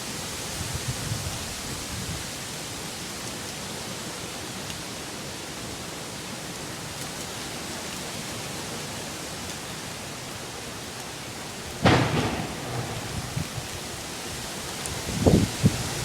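Hurricane-force wind rushing steadily, with a sudden loud bang about twelve seconds in and a few duller thumps near the end.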